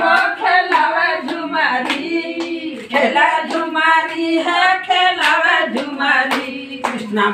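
Women singing together, with steady rhythmic hand claps keeping time.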